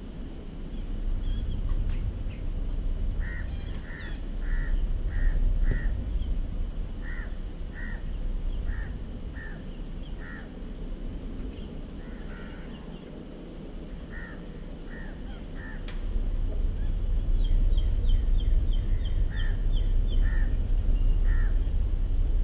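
Crows cawing again and again in runs of short, harsh calls. Near the end another bird gives a quick run of higher-pitched notes, over a steady low rumble.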